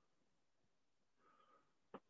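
Near silence: quiet room tone, with a faint short sound about a second and a half in and a soft click at the very end.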